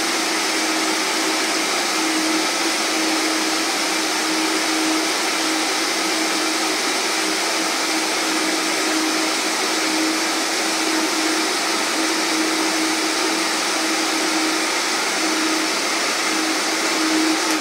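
Countertop blender running steadily, blending nopal cactus paddles, mint and parsley with orange juice and water into a green juice: an even motor rush with a steady hum under it. It stops abruptly at the very end as it is switched off.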